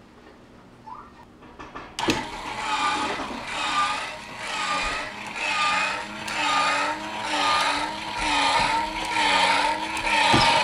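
Electric motor of an automatic chicken coop door starting with a click about two seconds in, then running steadily and winding the cord on its pulley to lower the door. Its whine swells and fades about once a second.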